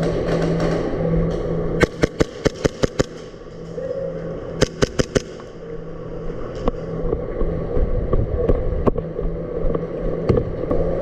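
Airsoft guns firing: a quick string of about eight sharp shots, a short pause, four more shots, then scattered single shots.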